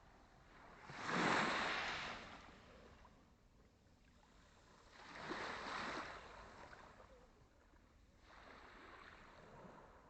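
Small sea waves washing onto the shore of a calm Black Sea, three in a row about three to four seconds apart, each swelling and fading away, the first the loudest.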